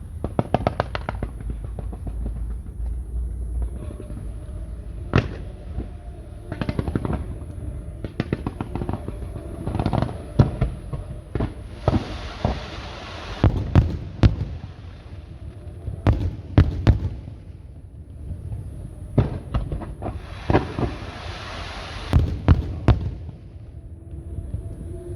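Aerial fireworks display: shells bursting in a string of sharp booms, with two spells of dense crackling, one near the middle and one toward the end.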